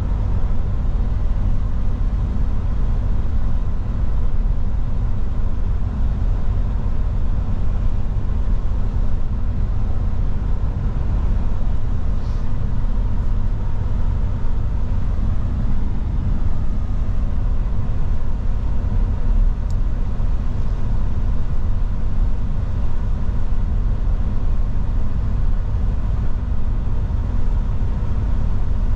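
Steady drone of a new Mercedes-Benz Actros truck on the move: engine and road noise heard from inside the cab.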